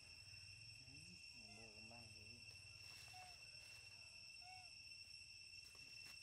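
Faint, steady high-pitched drone of insects, with a few faint short wavering calls about one to two seconds in and two brief chirps later.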